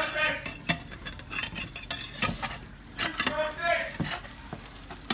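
A cooking utensil scraping and clicking against a frying pan over the sizzle of an omelet frying. The omelet is being folded and tearing, the fold going wrong.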